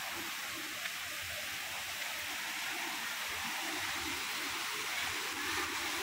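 Steady rush of flowing water from a rocky stream and waterfall.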